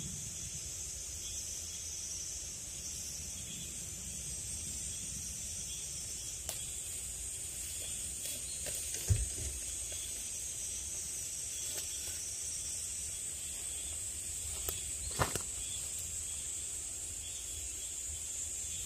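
A steady, high-pitched drone of a summer insect chorus in forest, with a fainter pulse repeating about once a second. Two soft knocks come about nine and fifteen seconds in.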